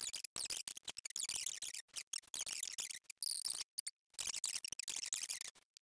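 Quiet, rapid clicking of a computer's controls in short runs with brief gaps, while a document is scrolled through.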